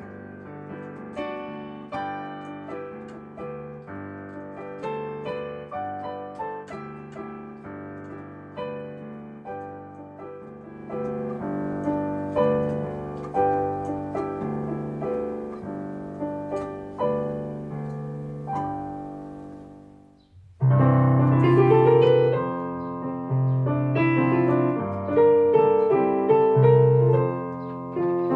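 Solo digital piano playing a slow passage that fades away about two-thirds of the way through. After a brief gap, a new, louder piece starts with heavy repeated bass notes under chords.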